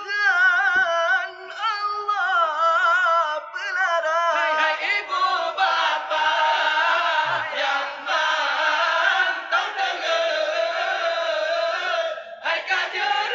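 Young men singing a Ramadan sahur wake-up chant into a microphone: one male voice sings alone with a wavering, ornamented melody, and about four seconds in a group of male voices joins in singing together.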